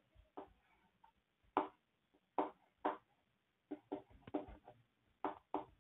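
Faint handwriting strokes: about a dozen short scratches and taps in uneven bursts, as an equation is written out.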